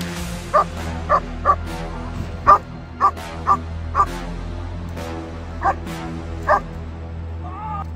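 Old German Shepherd Dog giving about nine sharp, irregularly spaced barks, with a pause in the middle. These are the guarding barks of protection training, aimed at the helper.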